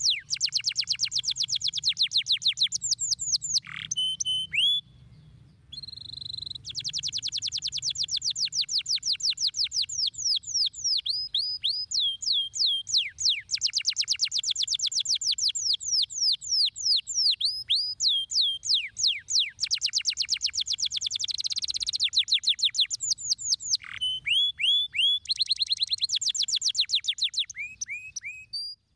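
Domestic canary singing a long song of rapid high trills, each made of fast repeated downward-sweeping notes. The song is broken by a few short pauses and cuts off just before the end.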